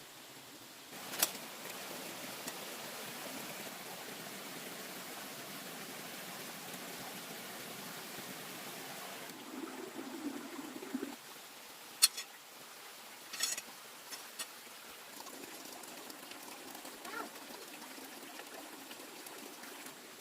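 Water running or pouring steadily for about eight seconds, starting and stopping suddenly, followed by a few sharp knocks.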